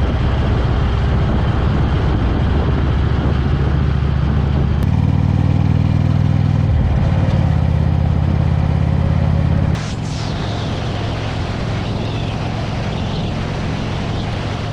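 Harley-Davidson Road King's V-twin engine running steadily while riding, with road and wind noise. About ten seconds in, the sound drops abruptly in level.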